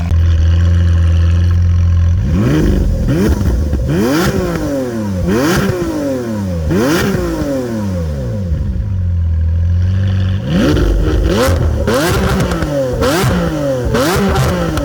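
Lamborghini Aventador 6.5-litre V12 through a custom valve-controlled exhaust, idling steadily, then blipped hard again and again, each rev climbing and falling straight back. The engine settles to idle a little past the middle, then a quicker run of blips follows near the end.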